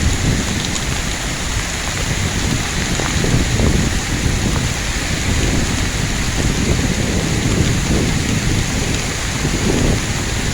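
Heavy rain falling steadily, with a low, fluctuating rumble underneath from strong gusting wind.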